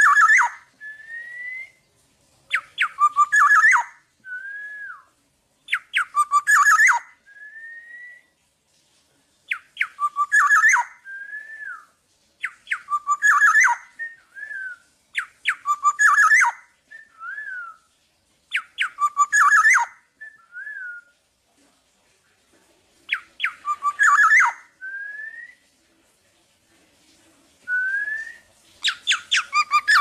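Black-naped oriole singing close up: a phrase about every three seconds, each a quick burst of sharp notes followed by a short clear whistle that rises or rises and falls.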